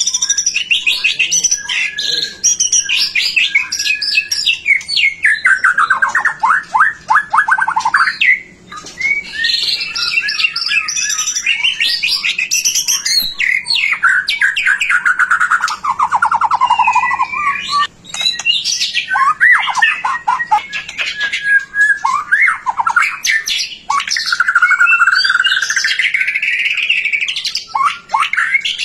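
White-rumped shama (murai batu) singing continuously in full, varied song: rapid chattering trills, falling sweeps and whistled phrases with only brief pauses.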